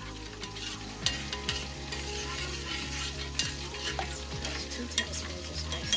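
Metal spoon stirring a thick honey mustard sauce in a white ceramic dish, with scattered clinks and scrapes of the spoon against the dish over a steady sizzle of frying. A low hum starts about a second in.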